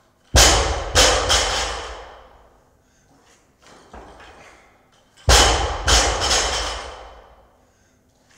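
Loaded barbell with bumper plates, about 80 kg, dropped onto the gym floor twice, about five seconds apart. Each drop is a heavy thud followed by a couple of bounces and ringing plates. A lighter knock comes between the two drops.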